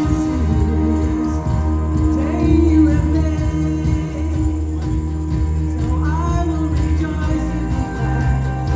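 Live gospel worship music: a band with steady bass and sustained keyboard chords, with singing and a jingling tambourine.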